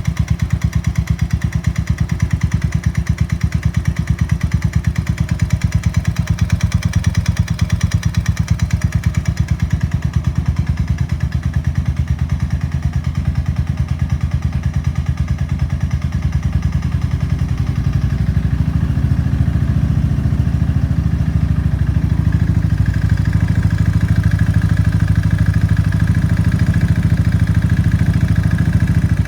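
Suzuki LS650 single-cylinder four-stroke motorcycle engine running with a steady, fast knocking in time with the engine: piston slap from a seized piston with excessive piston-to-cylinder clearance. Past the middle the engine note grows deeper and somewhat louder.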